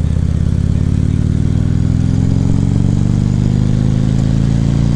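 2014 Harley-Davidson Ultra Classic Limited's V-twin engine pulling the bike along, its pitch rising steadily as it accelerates, then falling off sharply right at the end.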